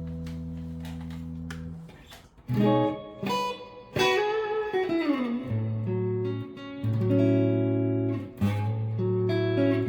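Electric guitar with neodymium pickups. A held chord rings and fades out, then after a short pause come picked notes, one sliding down in pitch, followed by a riff of low notes and chords.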